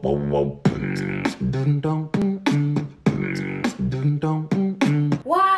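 Background music: a quick beat of sharp hits between short low notes, with a note that slides up and then down near the end.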